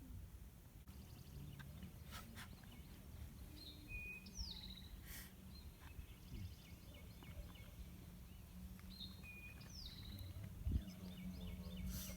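A songbird singing the same short phrase twice, about five seconds apart: a high whistled note sliding down, then a quick buzzy trill. A few soft clicks sound in between.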